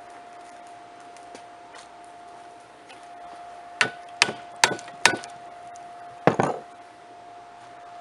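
Hand hammer striking a red-hot railroad spike clamped in a bench vise: four quick blows, a short pause, then a final double blow, each with a slight metallic ring. A steady faint hum runs underneath.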